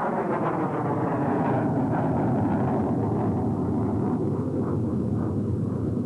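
F-16 fighter jet making a low pass down the runway, its engine noise loud and steady, with a tone that sweeps downward over the first few seconds as it goes by.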